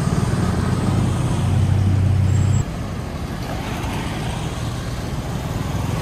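Steady low engine rumble that cuts off abruptly about two and a half seconds in, followed by quieter street noise with passing traffic.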